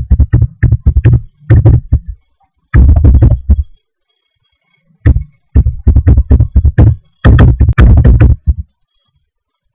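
Computer keyboard keys clattering in four quick runs of keystrokes with short pauses between, as a password is typed and then retyped to confirm it.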